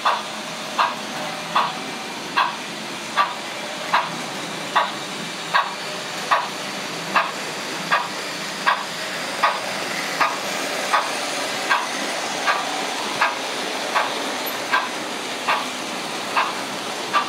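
Digital Märklin model steam locomotive running, its sound decoder giving steady, evenly spaced steam chuffs a little faster than one a second, over the continuous running noise of the model train on the track.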